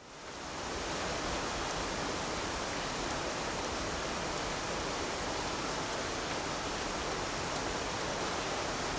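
A steady, even hiss of noise that fades in over the first half second and then holds without change.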